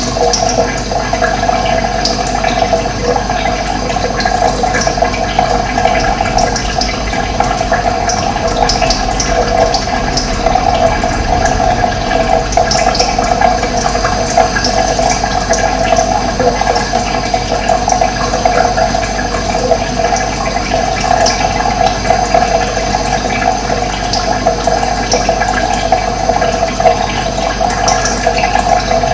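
Running water rushing steadily, with short high bird chirps scattered through it.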